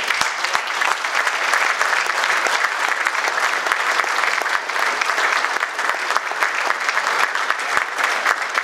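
Audience of seated people applauding steadily, many hands clapping at once, starting suddenly and carrying on without a break.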